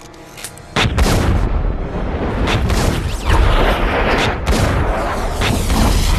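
Film soundtrack gunfire: several heavy pistol shots over a continuous low rumble, beginning about a second in.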